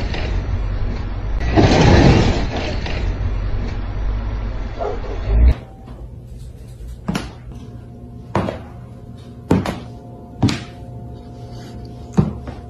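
Loud rushing outdoor noise that cuts off suddenly about five seconds in. Then background music with five or six sharp knocks, about one a second.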